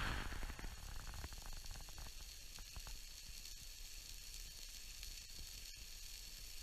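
Campfire hissing faintly and steadily, with scattered small crackles.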